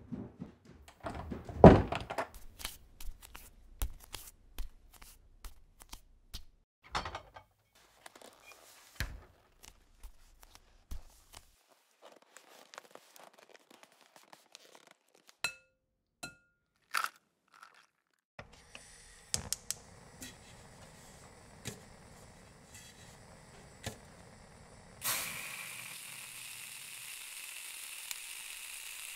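A scattered run of thunks, knocks and clicks, the loudest about 2 seconds in, followed about 25 seconds in by the sudden start of a steady sizzle of food frying in a hot pan.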